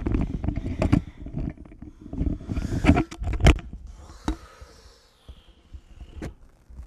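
Handling noise from the recording camera being gripped and repositioned: a string of knocks, clicks and rubs on its microphone, busiest in the first three seconds or so, then a few quieter taps.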